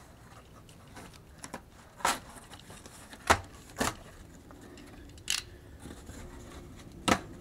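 Corrugated cardboard box being cut with a box cutter and pressed and bent by hand: about five short, sharp cracks and knocks with quiet stretches between.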